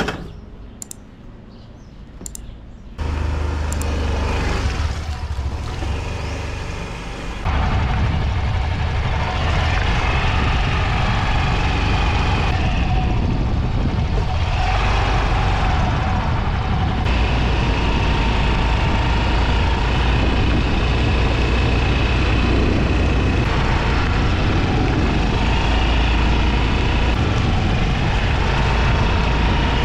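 Yamaha Grand Filano scooter being ridden on the road: steady engine and road noise with a low rumble. It starts quieter, gets louder about three seconds in, steps up again about seven seconds in, and holds steady from there.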